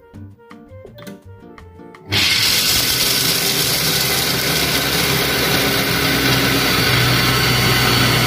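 Silvercrest Monsieur Cuisine Connect kitchen machine starting about two seconds in and running its blade at top speed 10, grinding hazelnuts. It makes a loud, steady whirring, with background music before it starts.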